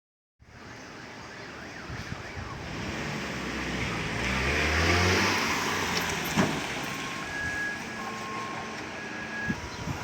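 A motor vehicle going by, its engine and road noise swelling to loudest about five seconds in and then fading.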